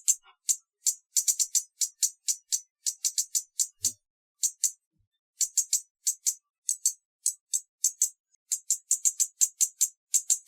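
Hummingbird chip calls: rapid, very short, high-pitched chips in runs of several a second, with a brief pause about four seconds in.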